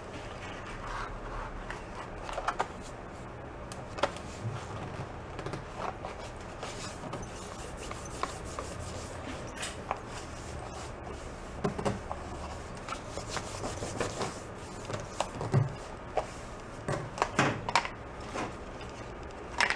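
Paper templates rubbing and sliding on a steel welding table, with scattered clicks and taps of thin sheet-metal strips being picked up and set down, busier in the second half.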